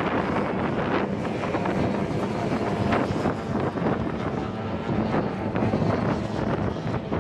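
Racing powerboat engines droning as the boats run across the water, under heavy wind buffeting on the microphone.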